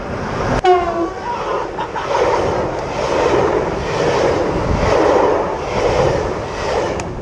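BLS electric multiple-unit passenger train running past close by, a steady rushing rumble of wheels and body that swells and eases every second or so. A click and a brief tone sound about half a second in.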